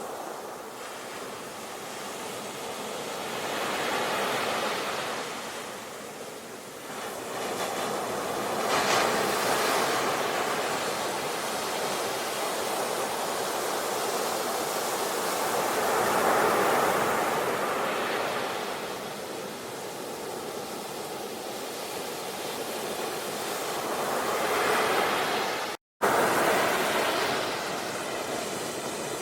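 Ocean surf: waves breaking and washing on a shore, the rush swelling and easing every few seconds. The sound cuts out for a split second near the end.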